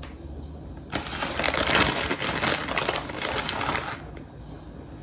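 Plastic bag of shredded cheese crinkling as a hand grabs cheese out of it, for about three seconds starting about a second in.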